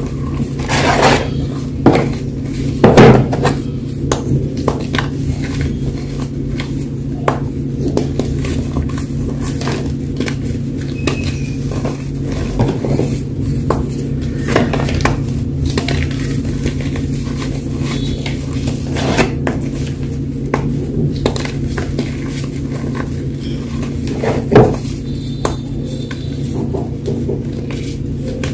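Fresh gym chalk being crushed and crumbled, giving irregular sharp crackles and clicks, loudest about 3 seconds in and again near 24 seconds in. A steady low hum runs underneath.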